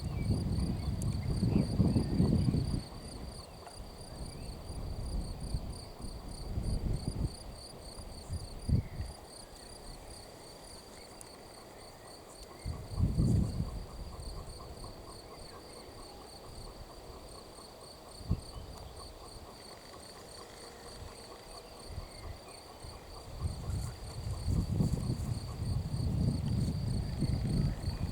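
Insects, crickets or bush crickets, chirping in a steady run of rapid, even pulses. Low rumbling noise swells near the start and again near the end, with a brief louder thump about thirteen seconds in.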